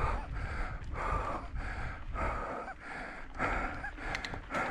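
A cyclist breathing hard in quick, even gasps from the effort of pedalling uphill, over a steady low rumble.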